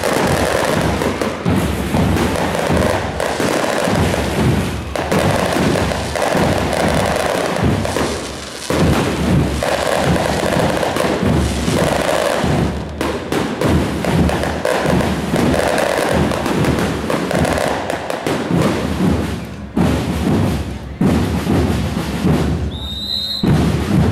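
Fireworks going off: a rapid, near-continuous string of bangs and crackles from shells bursting overhead, with a short high whistle near the end.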